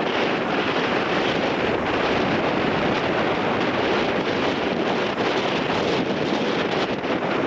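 Strong wind buffeting the microphone over crashing surf on a rocky shore, a dense continuous roar with no pauses.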